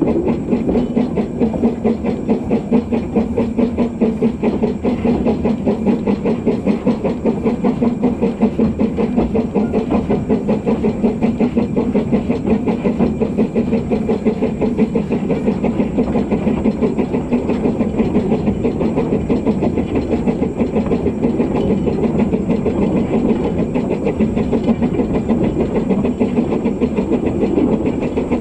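Narrow-gauge steam locomotive 'Tom Rolt' working along the line, its exhaust beats coming in a quick, even rhythm over a steady rush of noise.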